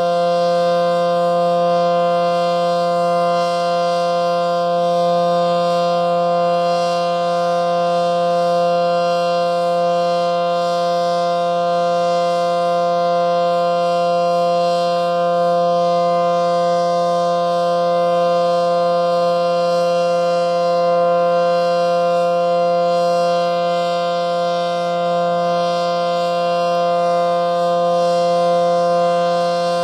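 ACA Allertor 125 rotating electromechanical warning siren with 9/12 ports, sounding a steady full-alert tone as a chord of held pitches. The level holds steady instead of waxing and waning because the siren's rotation has failed and it stays pointed one way; the uploader notes it is also still wired in reverse.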